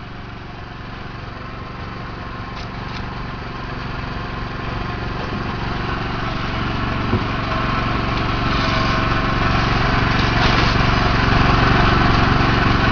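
A small engine running steadily, growing gradually louder as it comes closer.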